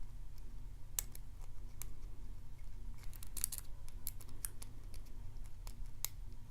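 Lock pick and tension wrench working the pins inside a Morris LOTO padlock's five-pin brass cylinder: scattered small sharp clicks, with a quick run of them about three seconds in, over a steady low hum.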